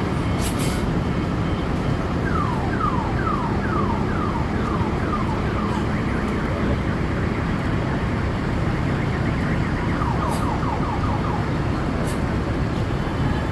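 Bus reverse warning alarm sounding in runs of quick falling chirps, about three a second, with a second, faster run later on, over the steady running of the bus engine.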